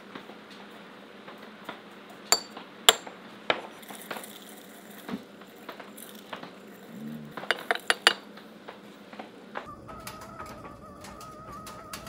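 Ceramic dish and spoon clinking against each other and against a glass teapot as dried rose hips are scooped and tipped in: a few sharp clinks in the first few seconds, then a quick cluster of them about eight seconds in. A steady tone comes in near the end.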